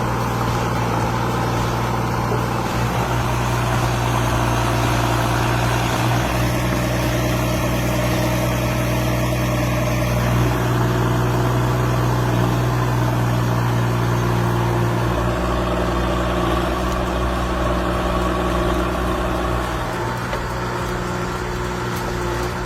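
Heavy machine's diesel engine running steadily at an even speed, with a deep hum.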